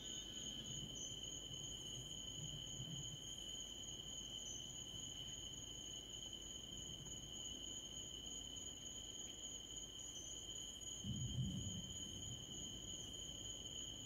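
Steady chorus of night insects, crickets trilling on two constant high pitches. A brief low rumble comes about eleven seconds in.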